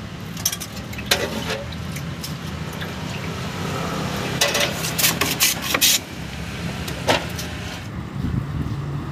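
Metal ladle clinking against steel pots and a cup: a few sharp clinks about a second in, a quick cluster around five seconds in and one more near seven seconds. Under them runs a steady low rumble.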